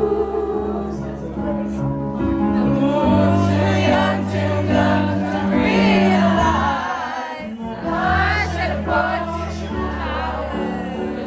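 Live pop music with singing over held bass notes, briefly dropping out about seven seconds in.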